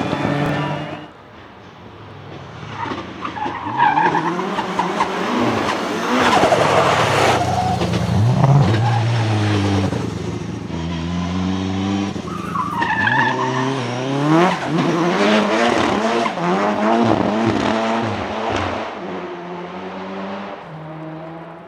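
Turbocharged Nissan 200SX S13 drift car drifting past, its engine revving up and down as the tyres squeal and skid. It swells to its loudest in the middle and fades away near the end.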